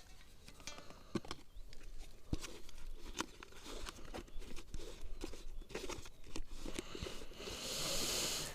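Close handling noises: a run of small clicks, crackles and rustles, then a louder hiss lasting about a second near the end.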